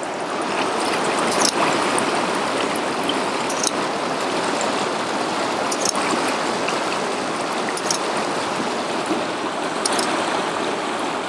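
Steady rush of a river cascade pouring over rock ledges. Faint clicks come about every two seconds: the camera shutter firing for a series of photos.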